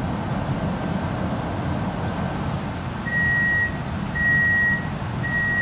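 Three door-closing warning beeps from an X'trapolis 100 electric train at a station stop, each about half a second long and all at one steady pitch, starting about three seconds in. They sound over a steady low rumble inside the carriage.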